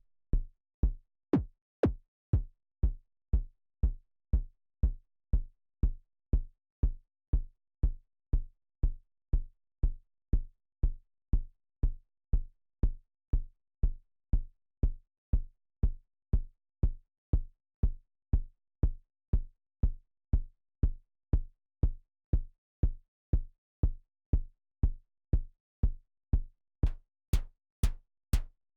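Synthesized kick drum from Reason's Subtractor synthesizer, looping at about two hits a second: short, deep thumps that die away quickly. Near the end each hit gains a sharp click at its start.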